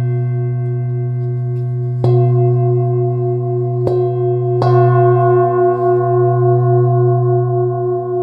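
Forged bronze-alloy singing bowl (Healingbowl Professional Gold Moon) ringing with a deep low hum and a stack of wavering overtones. It is struck again about two seconds in, near four seconds, and once more half a second later, each strike brightening the sustained ring.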